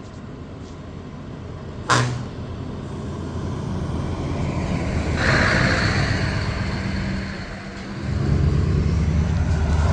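Heavy truck with an open exhaust pipe driving by: engine noise builds after a short sharp burst about two seconds in, and a loud, deep exhaust rumble takes over from about eight seconds in.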